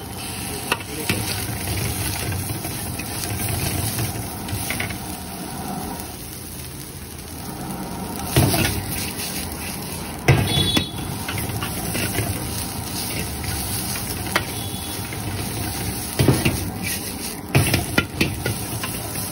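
Shredded cabbage, onion and carrot sizzling as they are stir-fried in a large iron wok over a gas burner's steady low rush. A metal ladle stirs and scrapes the vegetables and strikes the wok in several loud clanks.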